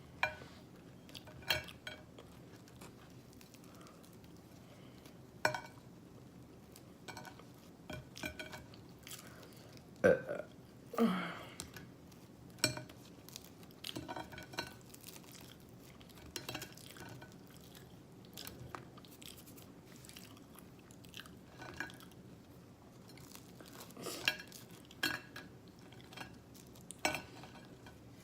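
Close-miked eating of waffles: chewing with the mouth open and lip smacks, heard as short irregular clicks. About ten seconds in, a louder pair of sounds falls in pitch.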